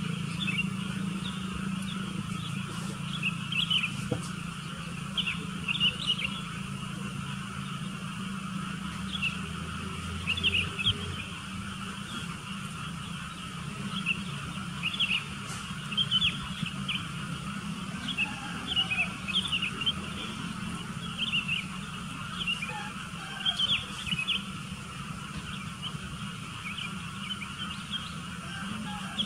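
Sooty-headed bulbuls calling: many short, quick chirps repeating on and off, over a steady low hum.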